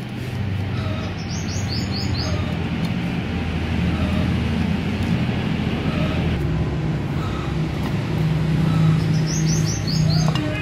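A bird calling twice, each call a quick run of about five high, falling chirps, one near the start and one near the end, over a steady low hum.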